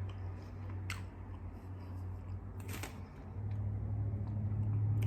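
A person chewing a mouthful of crispy fried-chicken sandwich, with two short crunches, about one second and about three seconds in.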